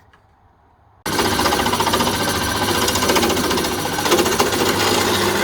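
A power tool starts abruptly about a second in and runs at full speed with a fast, even pulsing rattle.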